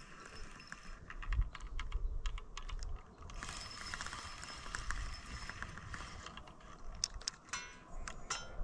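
Fishing reel clicking as it is worked by hand: scattered sharp clicks, with a fast ratchet-like run of clicks near the end.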